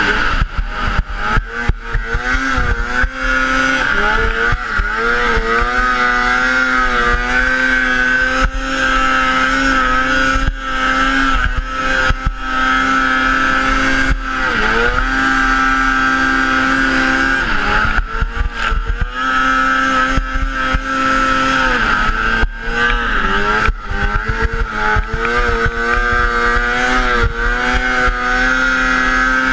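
600-class racing snowmobile engine held at high, steady revs as the sled skims across open water, its pitch dropping and climbing back several times as the throttle eases and opens again. Wind buffets the helmet-mounted microphone throughout.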